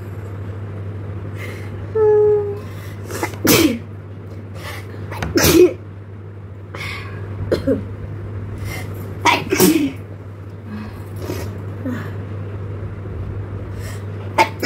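A string of sneezes, about four loud ones with smaller ones between, brought on by tickling the nose with a blade of long grass. A steady low hum runs underneath.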